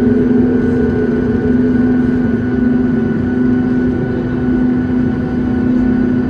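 Boeing 737 MAX 8's CFM LEAP-1B turbofan engines running steadily: a loud, even drone with a deep hum and a fainter high whine held at a fixed pitch.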